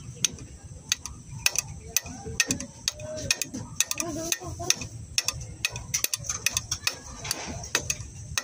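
Irregular metallic ticking and clicking over a low mechanical hum from the underside of an Isuzu 10PD1 dump truck as the PTO valve control is pushed in to lower the dump box.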